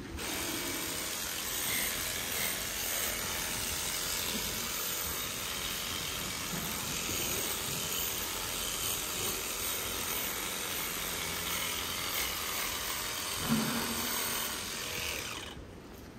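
Battery-powered animal clipper running steadily as it trims the hair of a cow's tail switch, with one brief louder sound near the end; the motor stops shortly before the end.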